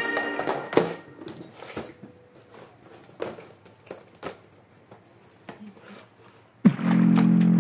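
Hard plastic lure box handled on a wooden table: a few scattered clicks and knocks as it is set down and its lid unlatched and opened. Music comes in near the end.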